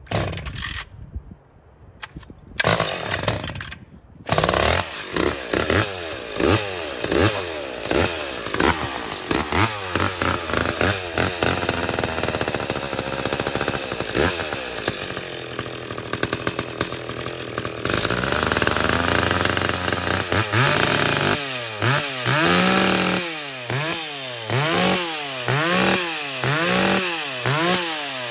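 Ported McCulloch Pro Mac 850 two-stroke chainsaw getting going after a couple of short bursts, catching about four seconds in. It is then revved again and again in quick rising-and-falling blips, holds a high steady run for a few seconds, and goes back to regular blips about once a second while it warms up before the cut.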